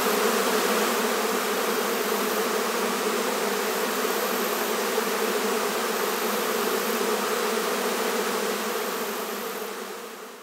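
A swarm of honey bees buzzing steadily, a dense hum of many bees in flight as they move into a hive box. The hum fades out near the end.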